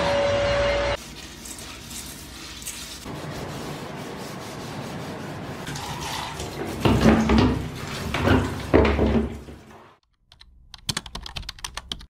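A Deerma VC01 cordless stick vacuum runs with a steady whine for about the first second. After a cut, water runs and splashes in a kitchen sink, swelling in surges in the second half. Near the end comes a quick run of light clicks.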